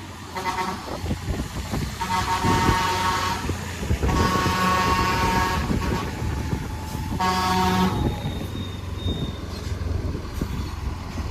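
Bus's Telolet Basuri V3 musical air horn sounding four multi-note blasts: a short one, two long ones of about a second and a half, and a short one near the end. The bus engine's low rumble runs underneath.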